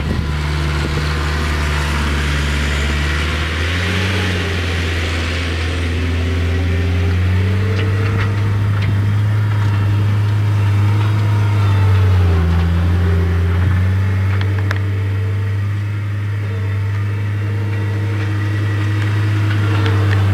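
2002 New Holland LS160 skid loader's diesel engine running steadily, its speed stepping up about four seconds in, then dipping briefly and recovering a little after twelve seconds. It runs smoothly, a machine that starts right up and runs very well.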